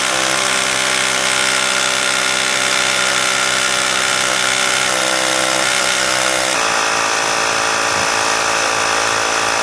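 Hart 20-volt cordless tire inflator running steadily, pumping air into a car tire on its way up to 35 psi. Its tone shifts slightly about two-thirds of the way through.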